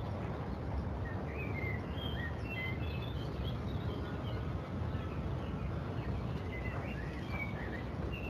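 Outdoor ambience: many short bird chirps scattered over a steady low rumble.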